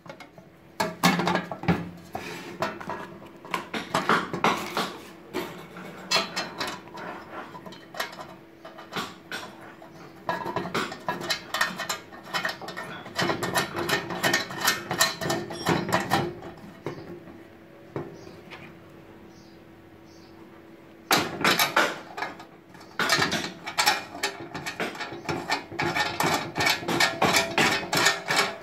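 Hands handling a sheet-metal MCB distribution box and its cover, making many irregular clicks, taps and scrapes of metal on metal and plastic. The handling eases off for a few seconds about two-thirds of the way through, and a faint steady hum runs underneath.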